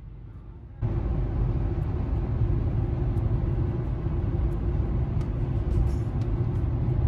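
Road noise inside a moving car's cabin at highway speed: a steady low rumble of tyres and engine with a constant low hum. It jumps suddenly louder about a second in.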